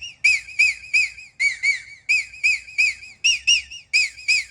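Renault Clio's car sound system playing a treble test: short, high whistle-like chirps repeated about three times a second. Their pitch steps up and down a little between groups.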